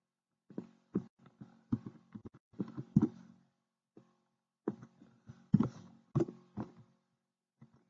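Computer keyboard typing: irregular clusters of key taps, each with a brief low ring.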